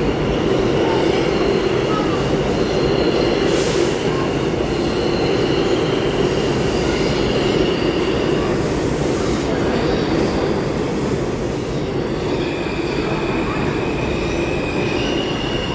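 New York subway train noise in the station: a loud, steady rumble with high-pitched wheel squeals that come and go. A short hiss of air sounds about three and a half seconds in and a longer one around eight to nine seconds.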